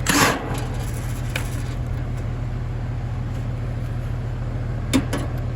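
Goodman air-conditioner condensing unit humming steadily and low, a sound the technician takes by ear for a failed capacitor. A brief loud scrape at the very start and a sharp click about five seconds in.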